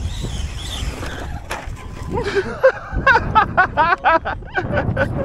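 Indistinct voices from about two seconds in, over a low, uneven rumble.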